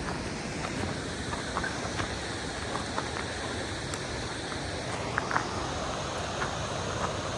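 Waterfall: a steady rush of falling water, with a few faint clicks about five seconds in.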